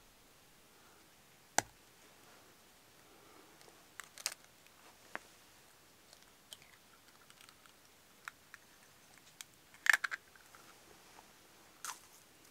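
Hands handling a split green bamboo tube on stones: scattered sharp clicks and knocks of bamboo, the loudest a quick cluster about ten seconds in.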